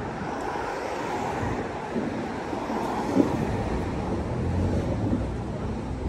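A car running, with a rushing noise like wind on the microphone; a low engine hum comes in about four seconds in and the sound slowly grows louder.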